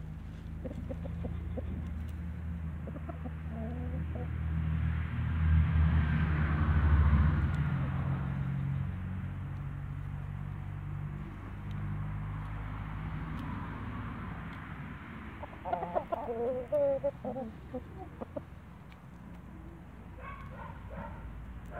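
Young Light Brahma roosters clucking in short bursts, the busiest run about three-quarters of the way through, with a brief call near the end. Underneath runs a steady low rumble that swells about six seconds in.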